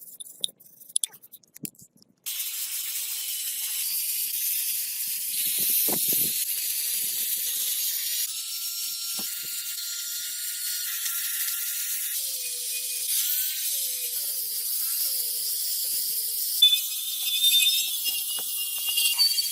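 A steady, high-pitched hiss, from a tool or compressed air at work during the restoration, that shifts abruptly in character a few times, with a few scattered clicks and knocks.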